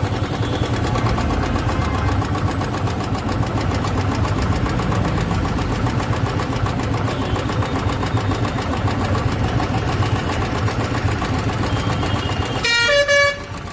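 Royal Enfield Bullet Electra 350 UCE single-cylinder engine running with a loud, fast clatter from the valve gear, rattling like marbles inside the engine. The hydraulic tappets are starved of oil by a choked oil filter.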